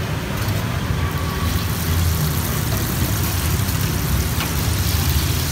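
Hot oil sizzling as fish balls deep-fry at a street-food cart, the hiss growing stronger about two seconds in, over a steady low rumble.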